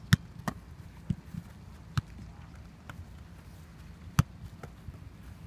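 A football being kicked repeatedly on a grass pitch: sharp thuds at uneven intervals, the loudest near the start and about four seconds in.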